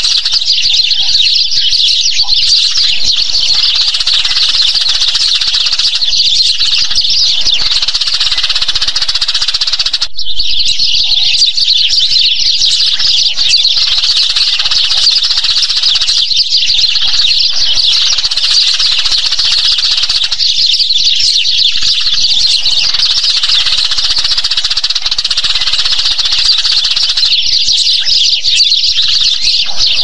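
A flock of Eurasian tree sparrows chirping constantly, many short calls overlapping into one dense chatter. There is a brief drop about ten seconds in, then it carries on.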